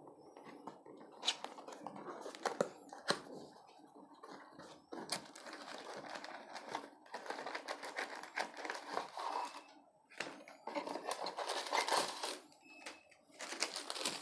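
Small cardboard retail box being handled and opened, and a paper insert drawn out of it: irregular rustling, scraping and sliding of card and paper with sharp clicks, broken by a few short pauses.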